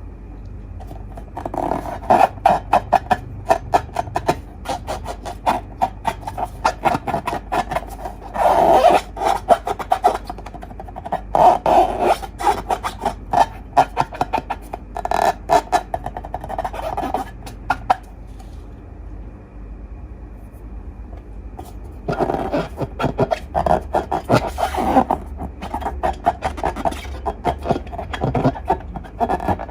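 Slime being squeezed and worked by hand: quick runs of sticky crackles and pops that come in bursts. There is a pause of a few seconds a little past the middle, and then the crackling resumes.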